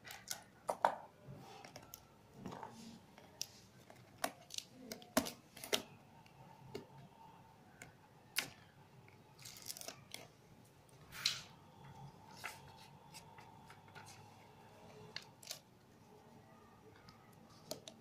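Paper and sticky tape being handled on a cardboard box: rustling, peeling and tearing noises with scattered sharp taps and clicks.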